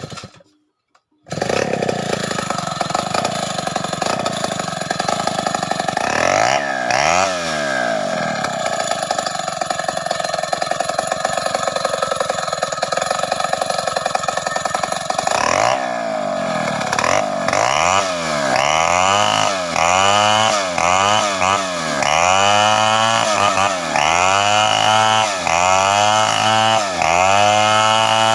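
Two-stroke chainsaw ripping lengthwise through a sengon (albizia) log to cut beams. It comes in abruptly about a second in and runs at a steady pitch for a while. From about two thirds of the way through, its engine speed rises and falls roughly once a second.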